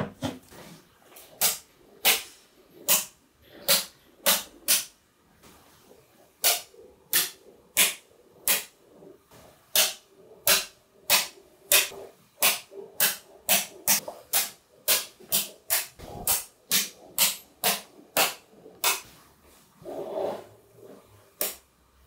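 Small magnetic balls clicking sharply as blocks and bars of them are snapped together and set down, a long run of clicks about two a second, with a softer, duller stretch near the end.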